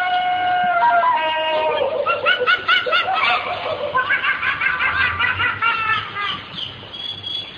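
High-pitched laughter, a fast run of short 'ha-ha' notes, after a falling glide about a second in.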